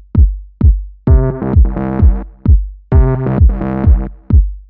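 Electronic background music: a sparse run of deep kick-drum hits, each dropping in pitch, with synth chords coming in over the beat about a second in.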